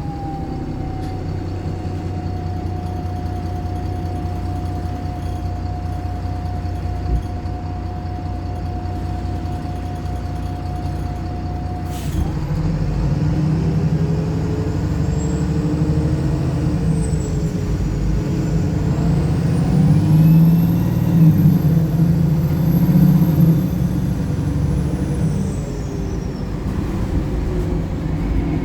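Single-deck Wright Pulsar bus heard from on board: the diesel engine idles steadily with a constant whine, then after a brief sharp sound about twelve seconds in the bus pulls away, the engine rising in pitch, dipping and climbing again, loudest a little past the middle. A high whine rises and falls with it, and the engine eases off near the end.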